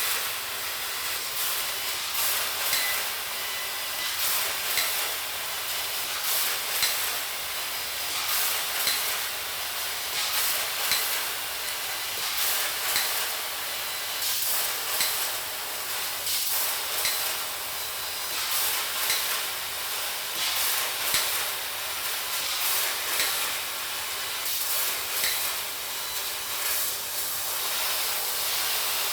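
Angle grinder with a 36-grit fiber disc grinding down a weld: a steady hiss of abrasive on steel over a faint motor whine, swelling and easing about every two seconds as the disc is swept across the bead.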